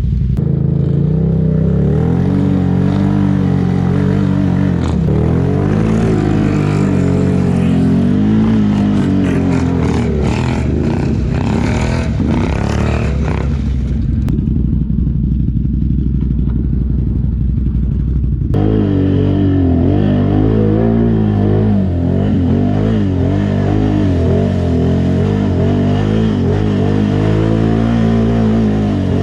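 ATV (quad) engines revving up and down under heavy load while working through thick mud, with some clattering about a third of the way in. For a few seconds past the middle the sound turns duller, then the revving comes back abruptly.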